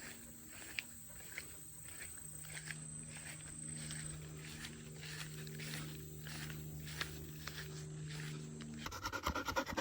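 Footsteps on a trail, a soft step about every half second, over a faint low pulsing hum.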